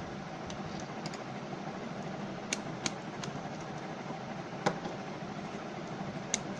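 Light handling clicks and taps over a steady background hum: a multimeter's test probes and a 9-volt battery being set down on a wooden table, then the meter's plastic rotary selector dial being turned, about half a dozen short clicks in all.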